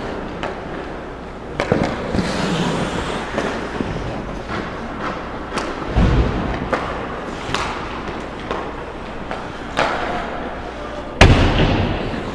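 Ice hockey play: skates scraping the ice, clacks of sticks and puck, and four hard impacts, the loudest near the end.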